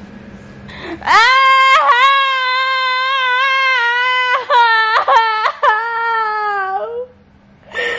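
A woman wailing loudly in feigned period-cramp pain. Long, high, held cries give way to a run of shorter broken ones, then a last drawn-out cry that stops about seven seconds in.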